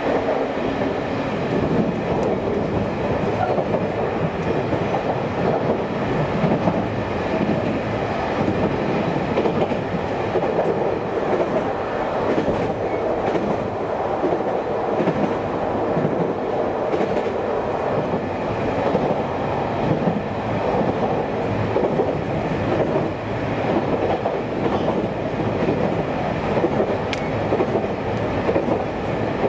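Running noise inside a JR Kyushu train carriage on the Kagoshima Main Line: the steady rumble of wheels on rail at speed.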